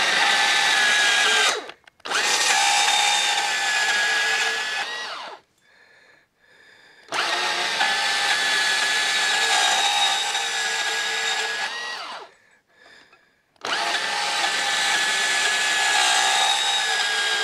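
Makita DPB180 cordless portable bandsaw with a coarse 8–10 teeth-per-inch blade cutting thin-wall steel box section, a steady motor and blade whine that starts and stops four times, with pauses of one to two seconds between cuts. The coarse blade cuts thin metal aggressively and can jam.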